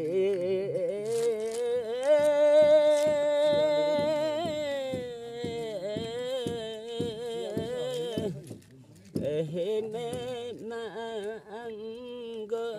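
An elderly man singing a Limbu (Yakthung) song unaccompanied, in long held, wavering notes. There is a short break a little past the middle before he sings on.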